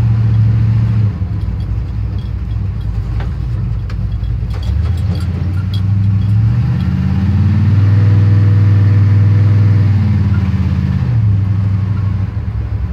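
1979 Chevy C10 pickup's engine heard from inside the cab while driving slowly: the note drops as the throttle eases about a second in. It climbs in pitch as the truck accelerates around six to eight seconds in, holds, and settles back down about eleven seconds in.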